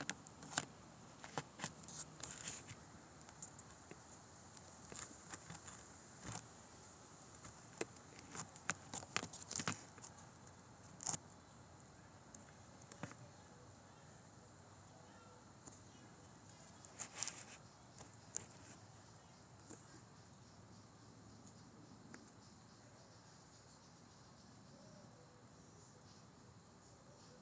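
Night insects giving a steady, faint high-pitched trill, with scattered clicks and rustles, most of them in the first two-thirds.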